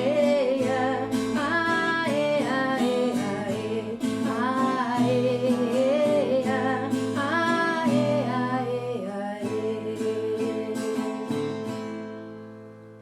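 The instrumental close of a gospel song: strummed acoustic guitar under a gliding melody line, fading out over the last couple of seconds.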